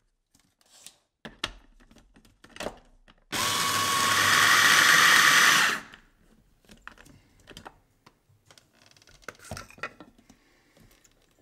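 Electric food chopper running in one burst of about two and a half seconds, its blades grinding rolled oats into a fine flour. Light clicks and knocks come before and after the burst.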